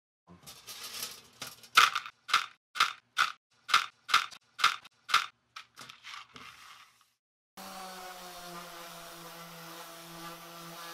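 A sanding sponge rubbed back and forth by hand over a metal panel, about two scratchy strokes a second. A little past halfway it gives way abruptly to an electric random orbit sander running steadily.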